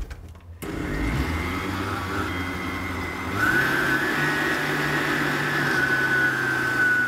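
Countertop blender motor starting about half a second in and running steadily while it churns frozen banana chunks and cocoa into soft ice cream. About three and a half seconds in it gets louder, with a high whine on top.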